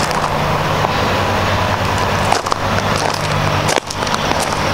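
Footsteps crunching on loose gravel, over a steady low hum.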